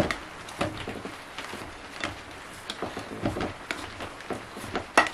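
Plastic bowl scraper folding damp bread dough in a glass bowl: irregular scrapes and taps of the scraper against the glass, the loudest knock near the end.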